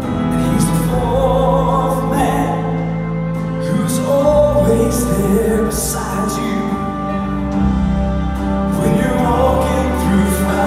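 Southern gospel song performed live: a male lead singer with piano and band accompaniment.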